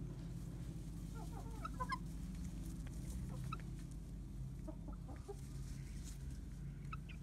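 Chickens clucking in short, scattered calls, a cluster about one to two seconds in and a few more later, over a steady low hum.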